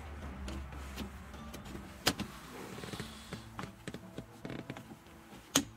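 Hands handling plastic dashboard trim and wiring connectors, with a scatter of small plastic clicks and two sharp clicks, one about two seconds in and one near the end.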